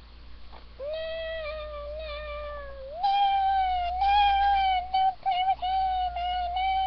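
A child's voice holding long, high, steady notes: one note starting about a second in, then a higher one from about three seconds in, held with a few short breaks near the end.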